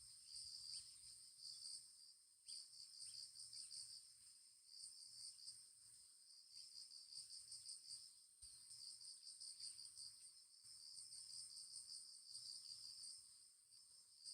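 Faint chorus of crickets chirping in rapid pulses, with a few short pauses.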